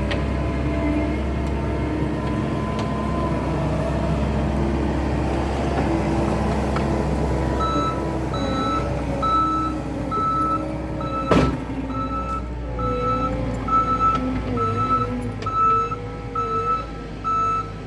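Skid steer diesel engine running under work, its pitch shifting. About eight seconds in its backup alarm starts a steady beeping as it reverses, with one sharp metallic knock a few seconds later.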